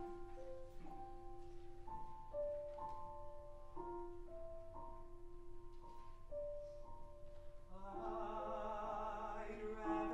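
Steinway grand piano playing a gentle, slow introduction of held chords and single notes. About eight seconds in, a man's voice begins singing with vibrato over the piano.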